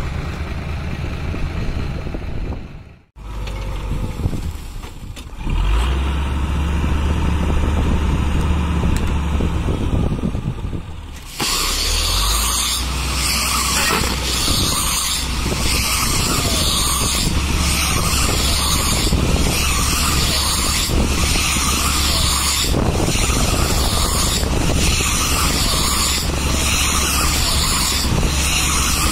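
Landini tractor's diesel engine running steadily as it drives a bale wrapper. From about twelve seconds in, the wrapper turns a round bale and winds plastic stretch film onto it, adding a loud, high hiss that pulses about once a second over the engine.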